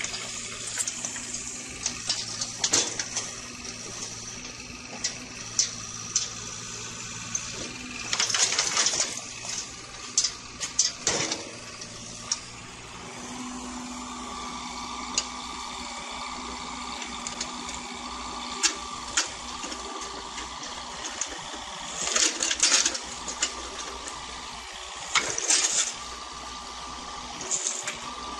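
Water running and splashing, with scattered sharp knocks and clatters; about halfway through a steady low hum with a higher tone comes in under it.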